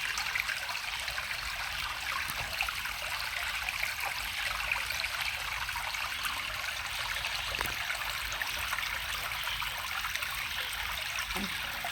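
A small creek flowing and trickling steadily over rocks.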